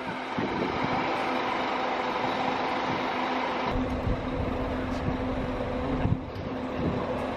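Diesel engine of a Scania K400-chassis Busscar Vissta Buss DD double-decker bus running as the bus moves slowly: a steady hum with a constant low tone, turning into a deeper rumble about four seconds in.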